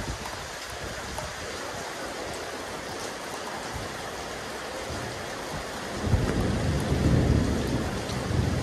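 Rain falling on a rooftop terrace, a steady hiss of drops. About six seconds in, a low rumble swells up beneath it.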